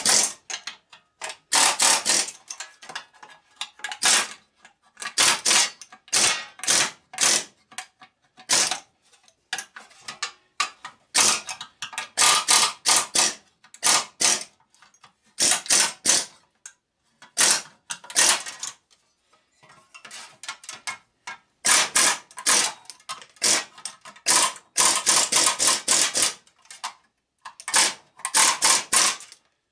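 Pneumatic air chisel hammering in short on-and-off bursts against steel rivets, cutting them out of a steel hub plate riveted to aluminum fan blades: a rapid metal-on-metal chatter that starts and stops many times, with a longer pause about two-thirds of the way through.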